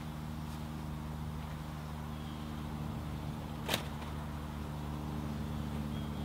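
A steady engine hum, an idling motor with an even low drone, and one sharp click a little past halfway through.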